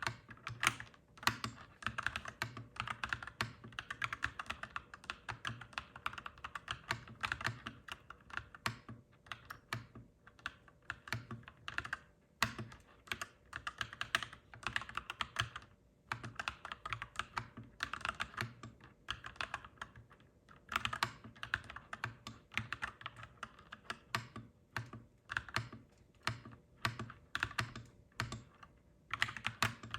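Clacky mechanical keyboard typed on at a quick, steady pace, in runs of keystrokes broken by brief pauses every few seconds.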